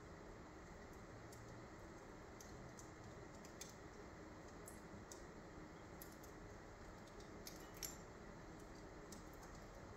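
Low wood fire on a fireplace grate crackling faintly: a soft steady hiss with scattered small pops and crackles, the sharpest nearly eight seconds in.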